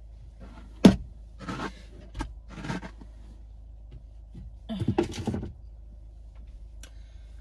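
Rustling and scraping as hair is handled and tied up close to the microphone, in several short swishes, with a sharp knock about a second in.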